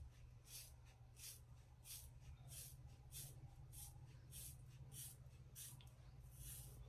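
Faint scissor snips cutting through a thick bunch of long wet hair, a regular rhythm of about three snips every two seconds.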